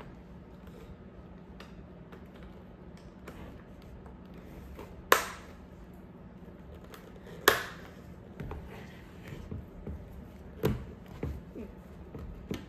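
Plastic clicks and knocks from a Riddell Speedflex football helmet being handled while its chinstrap is fitted: two loud sharp clicks about two and a half seconds apart, each ringing briefly, then a run of smaller taps and knocks.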